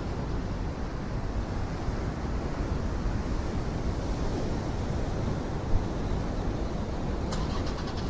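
Ocean surf washing over a rocky shoreline: a steady, dense low rumble, with one short click a little before six seconds in.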